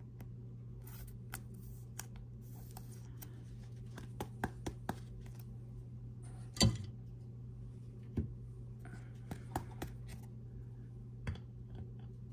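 Small clicks and taps of hard clear plastic as a trading card is fitted into a plastic card holder and set on a display stand, with one louder click about six and a half seconds in. A steady low hum runs underneath.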